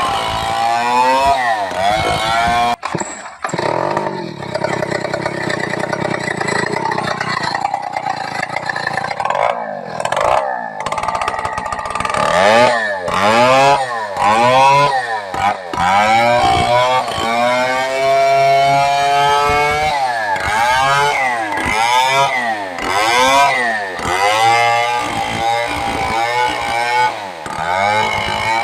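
STIHL 070 two-stroke chainsaw running loudly. It holds a steady speed for several seconds early on, then revs up and down over and over, about once a second.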